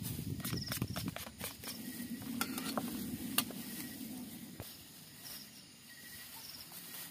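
Clicks and scrapes of a wooden utensil stirring diced onions and chilies in a stainless steel bowl, with one sharper click a little past three seconds in. After about four seconds it goes quieter, with a soft rustle of a plastic bag being handled.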